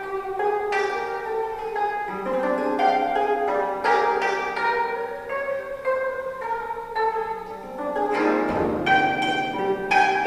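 A 25-string gayageum played solo: a dense run of plucked notes that ring and overlap. A lower note joins about two seconds in, and several strings are struck hard together near the end.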